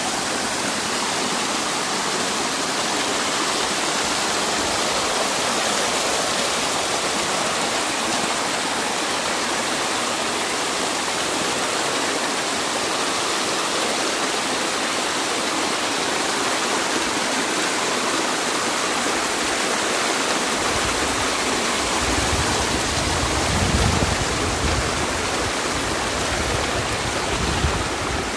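Shallow creek water cascading and splashing over granite slabs and boulders, a steady rushing. About two-thirds of the way through, a low rumble joins underneath.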